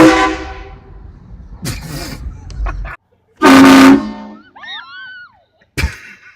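Car-mounted train horn sounding two short, loud blasts of chord-like tone, one at the start and another about three and a half seconds in.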